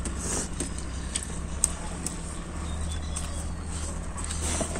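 A few light clicks and clinks of steel plates and bowls as people eat rice by hand, over a steady low hum.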